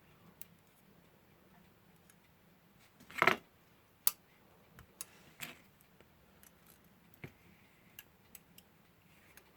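Tweezers and small alarm-clock movement parts clicking and scraping as they are handled: scattered light irregular clicks, a louder scrape about three seconds in and a sharp click just after four seconds.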